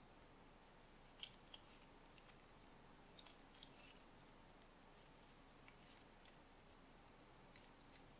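Near silence with faint rustles and soft clicks of satin ribbon being handled, its ends tucked and pulled through a woven ribbon knot. The small clicks come in brief clusters, about a second in and again a little past three seconds.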